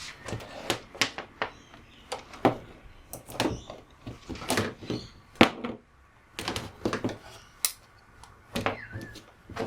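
Irregular clicks, taps and knocks of hard plastic and metal parts being handled while a UPS fuse is being checked in its holder.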